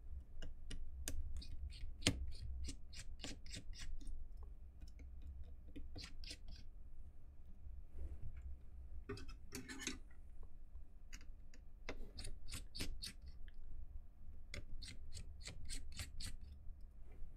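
Small screwdriver backing out the tiny screws that hold a PocketBook 614 e-reader's main board: runs of quick dry clicks and scrapes, in several bursts with short pauses between.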